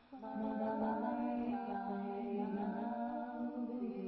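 Wordless vocal music: several layered voices humming sustained, chant-like notes that glide slowly in pitch. There is a brief break just as it begins.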